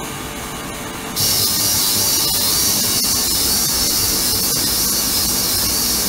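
Ultrasonic cleaning tank running: a steady hiss from the agitated water, stepping up louder about a second in.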